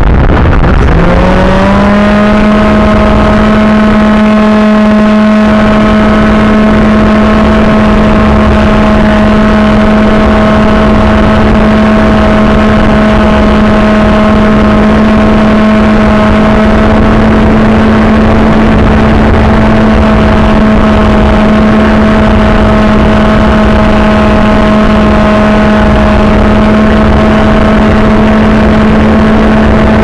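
The AXN Floater Jet's electric motor and propeller, heard from on board: a whining buzz that climbs sharply about a second in as the throttle goes up, then holds a steady high pitch, over a loud rush of air noise on the microphone.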